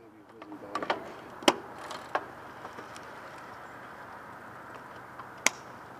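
A cyclist mounting a road bike and riding off: a quick run of sharp clicks in the first two seconds, typical of cleats snapping into clipless pedals, over a steady hiss. One more sharp click comes near the end.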